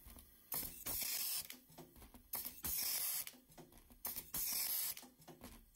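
Automatic-feed pneumatic blind rivet gun setting rivets, three cycles about every two seconds, each a short snap followed by about half a second of air hiss.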